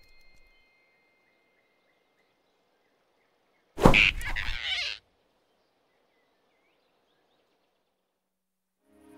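A single sudden, loud sound-effect hit about four seconds in, lasting about a second, in otherwise near quiet.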